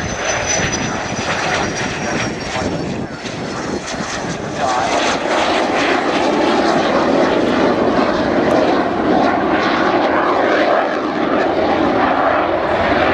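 Jet aircraft engine on a low display pass. A high whine falls slowly in pitch over the first few seconds. About four and a half seconds in, the engine noise grows louder and fuller and stays loud.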